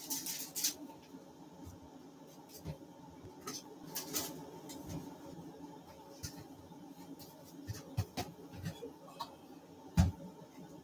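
Faint kitchen handling sounds: a brief crackle at the start, then scattered light clicks and taps over a low steady hum, and one dull thump near the end.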